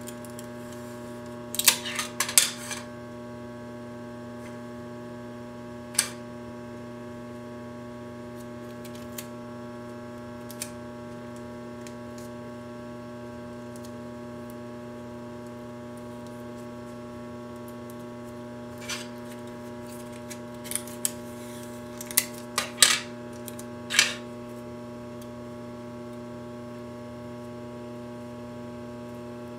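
Steady electrical hum, with short sharp crackles of clear adhesive tape being pulled off the roll and wrapped around the cut ends of twisted cord trim to keep the strands from unravelling. The crackles come a couple of seconds in and again in a cluster about two-thirds of the way through.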